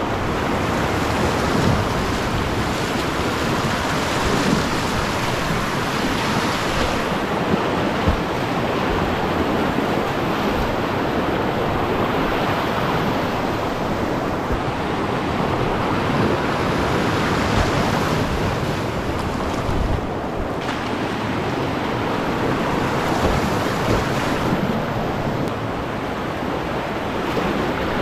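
Whitewater rapids rushing loudly around a kayak, heard close up from the boat, with brief splashes from the paddle strokes.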